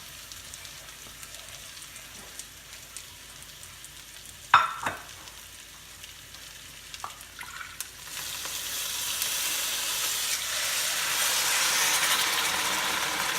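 Stuffed brinjals sizzling gently in hot oil in a pan, with two sharp clinks about four and a half seconds in. About eight seconds in the sizzle swells into a loud, steady hiss as water is poured into the hot oil.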